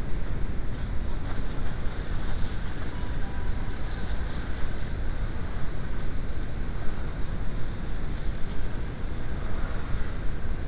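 Steady rushing noise of moving air, even throughout with no breaks.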